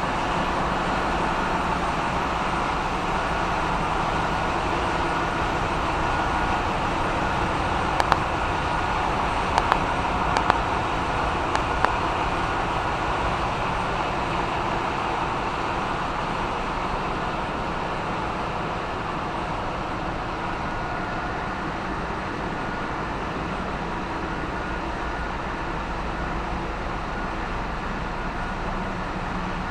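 Ship's engine room machinery running: a constant, loud mechanical drone with steady tones in it, and a few sharp clicks or knocks about a third of the way through.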